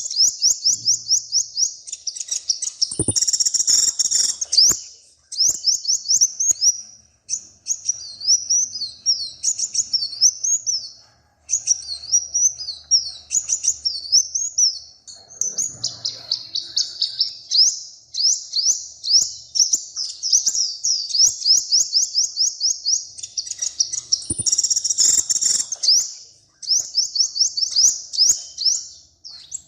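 A small songbird singing a long, fast song of rapid high chirps in quick runs, with two louder, harsher patches, one a few seconds in and one near the end. A sharp click marks the start of each patch.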